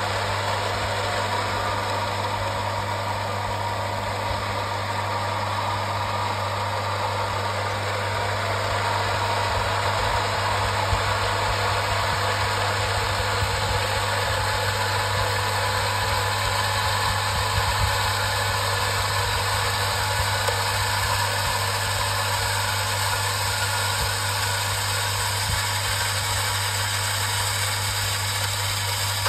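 Electric pump of a Metabo domestic water pumping station running with a steady hum, building water pressure as its gauge needle climbs.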